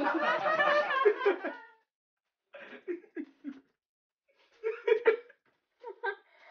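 A man and a woman laughing: a continuous stretch of laughter for the first second and a half, then a brief pause and short separate bursts of giggling.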